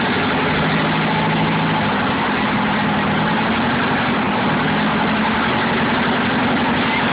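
Ferry's engine running steadily: an even low hum under a dense wash of mechanical noise.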